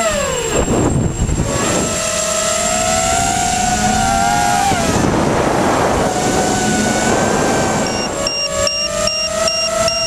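Eachine EC250 racing quadcopter's brushless motors whining on a 4S battery, the pitch falling sharply near the start, then climbing slowly and sagging again as the throttle changes. About eight seconds in, a steady high beeping starts, a little over two beeps a second.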